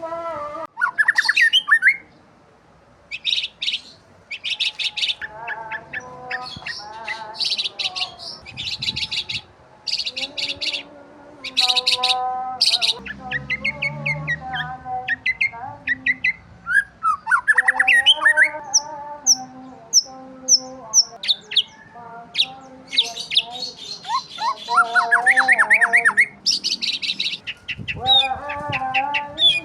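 Birds chirping and calling: quick runs of sharp, high chirps mixed with lower pitched calls that glide up and down, with a brief lull about two seconds in.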